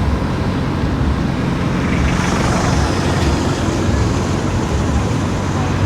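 Car driving on the road: steady engine and tyre noise, with a higher hiss joining about two seconds in.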